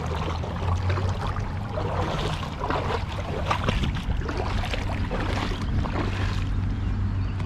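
River water splashing and sloshing in irregular spurts, over a steady low wind rumble on the microphone.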